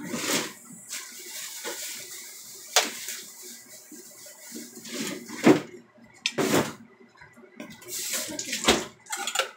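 Water running from a kitchen tap into a sink: a steady stream for the first few seconds, then several short, louder splashing bursts.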